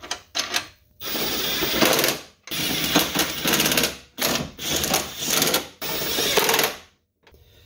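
A 3/8-inch ratchet clicking rapidly in four runs of about a second and a half each, with short gaps, as the transmission mount bracket's four nuts are run down. A few separate clicks come before the first run.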